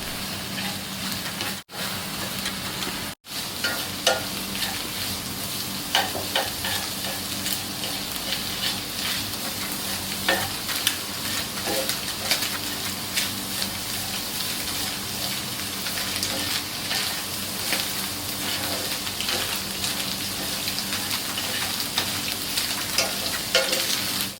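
Eggs sizzling as they are scrambled in a pan with ghee and vegetables, with a spatula clicking and scraping against the pan throughout. The sound cuts out briefly twice in the first few seconds.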